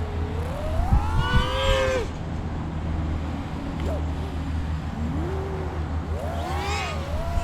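FPV quadcopter's brushless motors and propellers whining, the pitch swinging up and down with the throttle. There are two hard climbs in pitch, about a second in and again near the end, over a steady low rumble.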